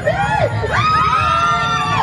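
Several high-pitched voices calling out over one another, with one long held cry starting about a second in.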